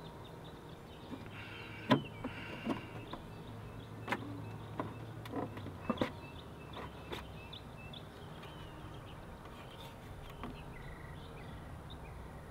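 Scattered light plastic clicks and knocks as a Vespa LX's horn cover is unclipped from the legshield and the trim beading handled. Faint short chirps sound in the quiet background.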